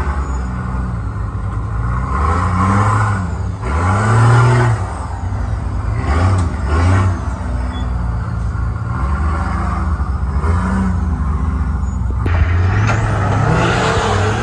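Off-road competition 4x4 truck engine revving up and down repeatedly, with one sharp knock about twelve seconds in.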